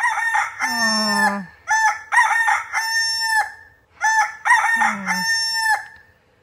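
Rooster crowing three times, each crow rising and then held for about a second and a half.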